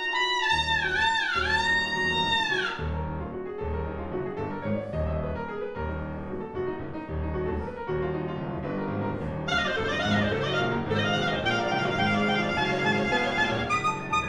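Clarinet and piano playing together. For the first couple of seconds the clarinet bends its notes in swooping glides, then the piano keeps up a repeated low pattern. About nine and a half seconds in, the clarinet comes back with fast, busy high notes over it.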